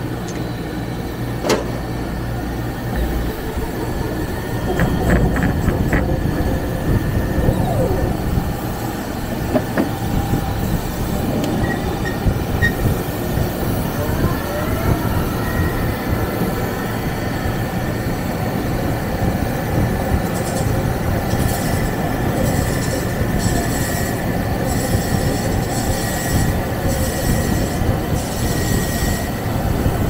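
A wheel lathe cutting a wheel, running steadily with a thin high squealing whine from the cut. There is a sharp click about a second and a half in and a quick run of clicks a few seconds later.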